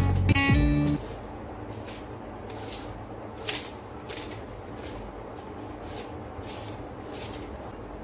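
Acoustic guitar music cuts off about a second in. Then comes a string of short, dry, papery crackles, about two a second, as the dry skins of red onions are peeled off by hand and with a knife.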